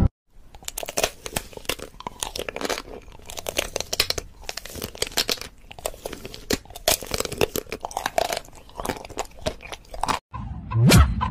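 Crunching as something hard and crisp is bitten and chewed: a run of irregular sharp crunches that stops abruptly about ten seconds in.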